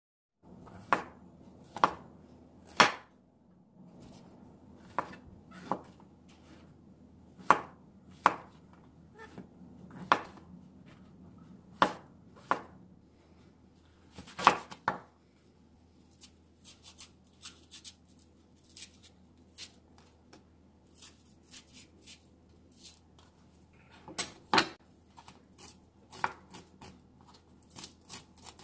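Chef's knife slicing chili peppers on a wooden cutting board: one sharp knock of the blade on the board per cut, roughly a second apart. In the second half, softer, quicker ticks and scrapes of a blade on the board as seeds are picked out of the split peppers, with a few firm cuts again.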